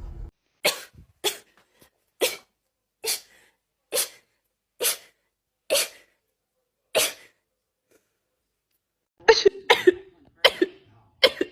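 A person sneezing in a rapid string: eight short, sharp sneezes about a second apart. After a pause of about two seconds, another string of quicker sneezes begins near the end.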